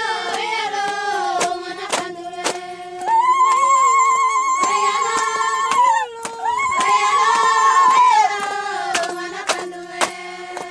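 Voices singing together, with long held high notes that waver, over a steady beat of sharp hits about twice a second.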